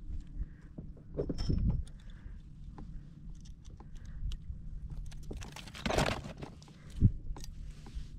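Handling noises of a just-landed fish aboard a kayak: scattered clicks and knocks over a low rumble of wind or water. A longer rush of noise comes about six seconds in, followed by a single sharp knock.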